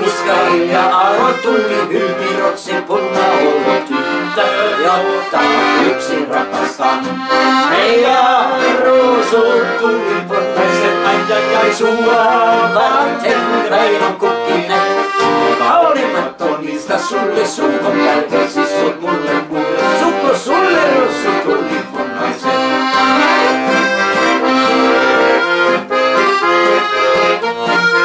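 A Ballone Burini Cantus 34a piano accordion playing a song with an acoustic guitar strummed along, and a man's voice singing over them.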